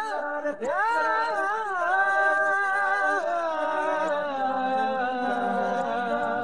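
Background score: a wordless voice humming long, held notes that glide between pitches, with a quick upward swoop about half a second in.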